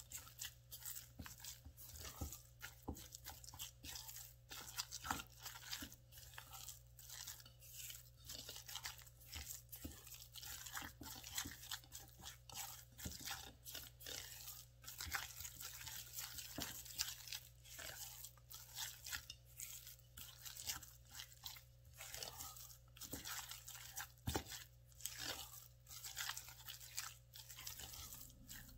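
Grated cassava dough with spice paste, spring onion and chopped chilli being mixed together: a continuous run of irregular, quiet crunching and squishing, several small sounds a second.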